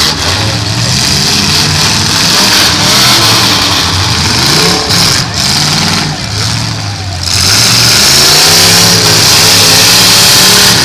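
Demolition derby cars' engines revving hard, their pitch rising and falling. The engines ease briefly about six seconds in, then climb again.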